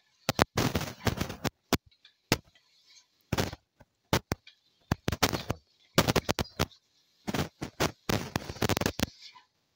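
A spatula scraping and knocking against a metal pan in irregular strokes as chicken pieces, onions and spices are stirred together.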